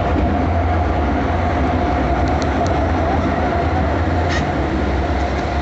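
Log flume ride machinery running: a steady, loud mechanical rumble with a constant hum and scattered light clicks and clacks, like a rail car rolling.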